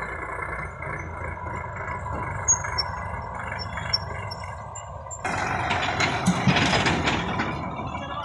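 Sonalika tractor diesel engines running as tractors pull trailers over rough ground. About five seconds in, the sound turns suddenly louder and rougher as a tractor is heard close by.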